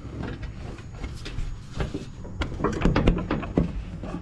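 Metal clinks and knocks from working the hanger pin and bracket of a zero-turn mower deck, several short clicks coming close together in the second half.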